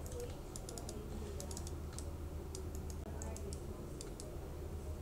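Computer keyboard keys and mouse buttons clicking in quick, irregular runs over a steady low hum.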